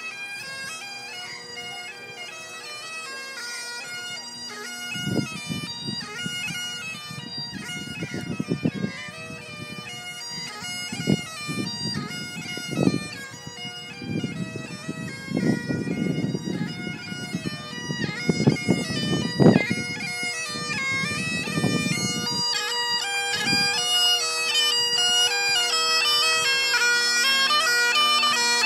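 Bagpipes playing a tune: steady drones under a stepping chanter melody, growing louder toward the end. Irregular low thumps come and go through the middle.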